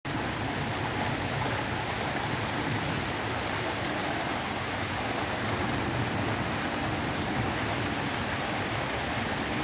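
Rain falling steadily onto broad papaya leaves and the yard around them, an even, unbroken hiss with no let-up.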